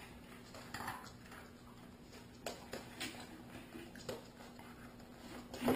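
German Shepherd's claws clicking and tapping on a hardwood floor as the dog shifts about, with a louder knock near the end and a faint steady hum underneath.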